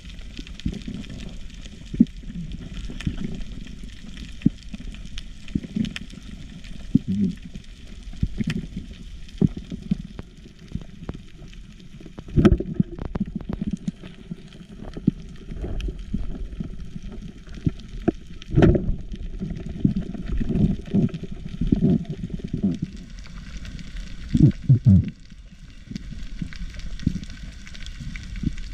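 Muffled underwater sound: water churning and bubbling, with scattered clicks and knocks and a few louder surges.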